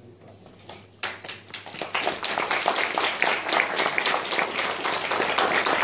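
Audience applause that breaks out suddenly about a second in and quickly builds to steady, dense clapping.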